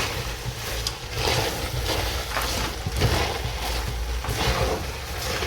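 Cabbage and minced meat frying and sizzling in a pan while a spoon stirs and scrapes through it in irregular strokes.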